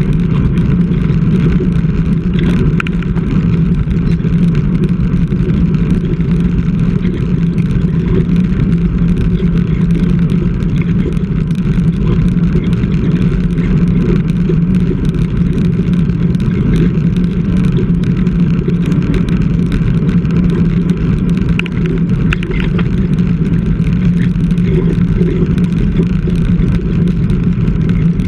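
Loud, steady wind rush and road noise on a bike-mounted GoPro while road cycling, heavy in the low end.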